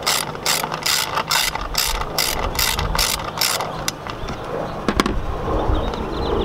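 Hand socket ratchet clicking about four times a second as it is swung back and forth, backing out an 8mm coil-pack bolt through a 6-inch extension. The clicking stops a little past halfway, and one more click comes near the end.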